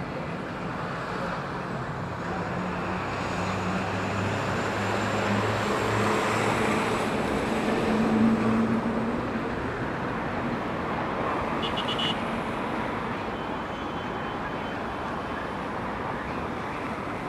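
Road traffic noise, with a motor vehicle passing whose engine is loudest about halfway through.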